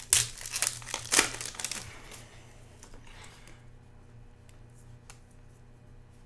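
Foil trading-card pack wrapper crinkling in the hands for about two seconds as the cards come out of it, then a brief, fainter crackle a second later, and only light handling of the card stack after that.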